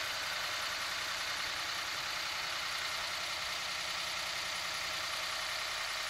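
Dodge Ram diesel pickup idling steadily.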